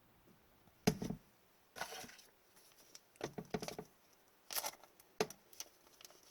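Trading cards being handled: scattered sharp clicks and taps with a few short rustles.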